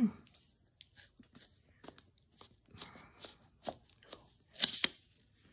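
Gift-wrapping paper on a small box crinkling and crackling in short, irregular clicks as fingers pick at the paper and tape, with a louder double crackle near the end.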